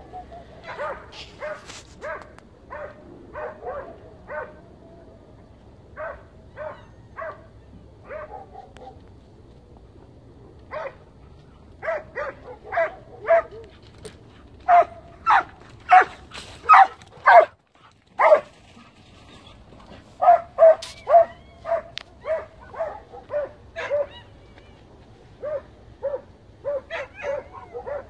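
Hunting hound barking in short barks, repeated in irregular bouts with brief pauses, loudest near the middle: the hound baying at a wild boar.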